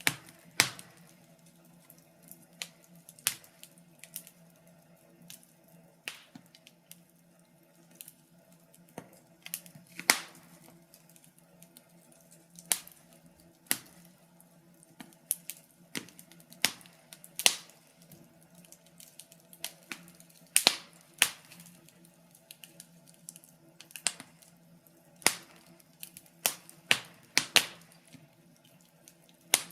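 Wood fire crackling: sharp irregular pops and snaps, one or two a second, over a faint low steady hum.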